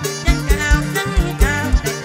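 Instrumental mor lam music: held chords on the khaen (Lao bamboo mouth organ) over a band, with a steady kick-drum beat about four times a second.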